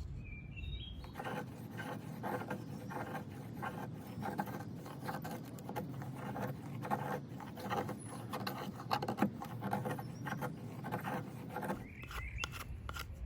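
Stainless Mora Companion knife edge carving fine feather shavings off a piece of white oak: a steady run of short scraping strokes, a couple a second, starting about a second in.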